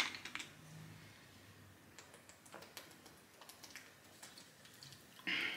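Quiet sips and swallows from a plastic bottle of sparkling water, with faint scattered clicks and a short breathy hiss near the end.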